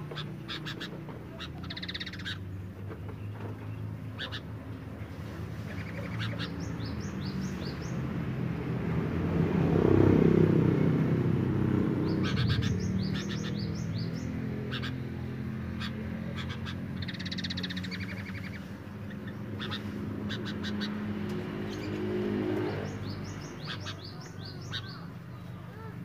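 Sooty-headed bulbuls in breeding condition giving bouts of rapid, high chattering calls several times. A low rumble swells and fades under them, loudest about ten seconds in.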